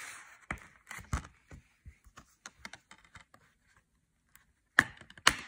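Plastic Blu-ray/DVD case being handled and opened: a run of small clicks and taps, with two louder clacks near the end.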